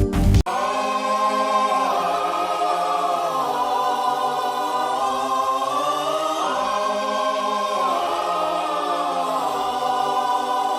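Choir-like voices holding a sustained 'aah' chord that glides to new pitches a few times, opening with a short loud burst.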